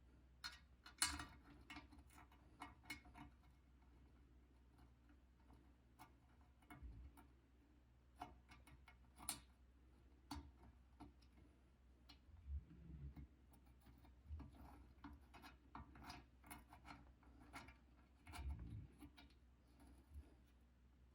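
Scattered light metal clicks and taps of the glass-retaining clips and their screws being fitted to a wood stove door, the sharpest about a second in, with a couple of soft low bumps of handling later on.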